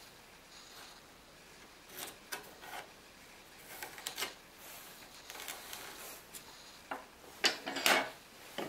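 Small wooden pieces handled and set down on a wooden workbench: scattered light knocks, scrapes and rubs, the loudest near the end.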